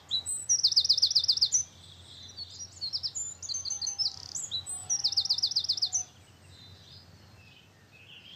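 A songbird singing: two fast trills of repeated down-slurred high notes, about eight a second, with scattered chirps between them.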